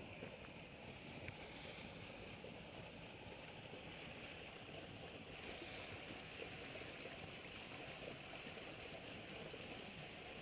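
Faint, steady rush of a small stream running white over a low drop in its channel.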